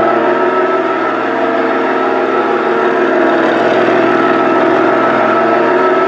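Steady engine hum from the RC Tamiya Ford F350 Highlift truck, running without change in pitch while it drives.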